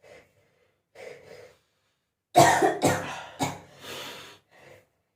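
Faint sniffs, then a person breaks into loud explosive bursts from the nose and throat: three in quick succession about half a second apart, then two weaker ones. The fit is set off by nasal snuff sniffed up the nose.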